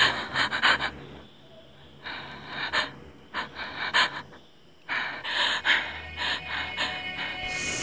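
A person gasping and breathing hard in clusters of short, quick, ragged breaths, broken by two brief pauses.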